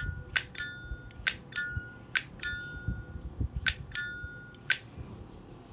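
Polished-chrome flip-top lighter with a square cam, its lid flicked open and snapped shut over and over: about ten sharp metallic clicks, each with a short bright ring, several coming in quick pairs.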